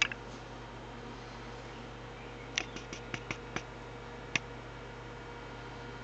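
Philips AG1016/22 record player running with its bare platter turning: a steady low motor hum. Sharp clicks cut through it, one at the start, a quick run of about six a little before halfway, and one more soon after.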